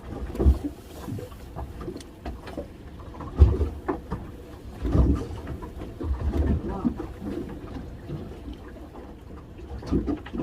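Sounds aboard a small fishing boat: irregular low thumps and knocks, with a few sharp clicks over a low rumble.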